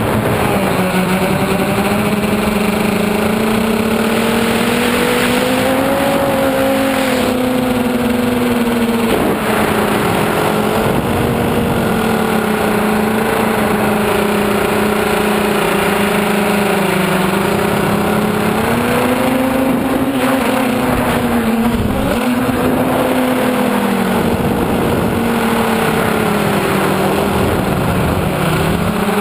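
Motors and propellers of an FPV tricopter heard from its onboard camera: a steady, loud buzzing whine whose pitch rises and falls as the throttle changes.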